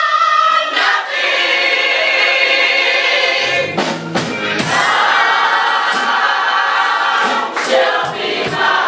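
Gospel choir singing, holding long chords, with a few sharp percussive hits about halfway through.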